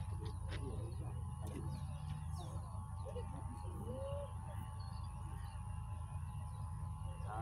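Open-air ambience: a steady low wind rumble on the microphone, a constant high thin whine, and several short bird calls, among them dove-like coos, the clearest about four seconds in.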